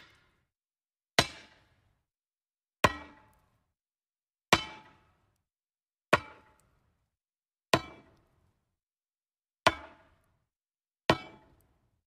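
Axe chopping into wood: seven separate sharp chops, about one every second and a half to two seconds, each with a brief ringing decay.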